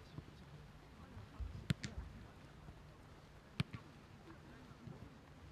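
Quiet ambience with a faint steady low hum and a few sharp knocks, the loudest a little under two seconds in and again past three and a half seconds.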